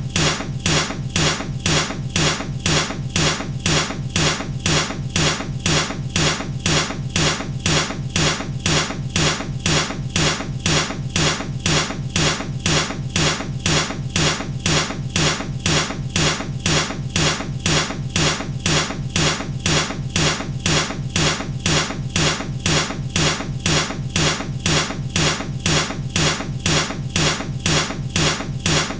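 Baseball bat striking something over and over, a loop of sharp hits with a low thud, repeating at a steady, even rhythm.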